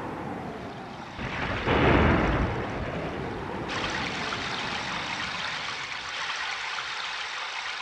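Thunderstorm sound effect: a loud rumble of thunder building about a second in and dying away, then a steady hiss of heavy rain.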